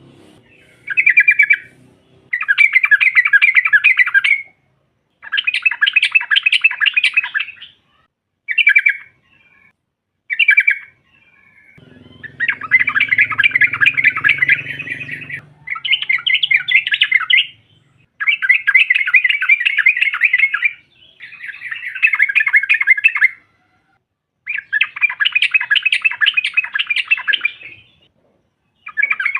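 Yellow-vented bulbul (trucukan) chattering in repeated bursts of rapid, bubbling notes, each burst from half a second to about three seconds long with short pauses between: the excited call of a female trucukan, played to set other trucukan singing.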